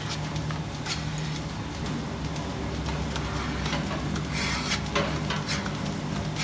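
Rotary milking parlour machinery running with a steady low hum, with scattered clicks and a short hiss of air about four and a half seconds in as a milking cluster is put on a cow's teats.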